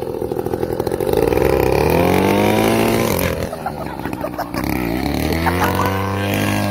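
Small engine revved up and let fall back several times, its pitch climbing from about a second and a half in and again in the last two seconds.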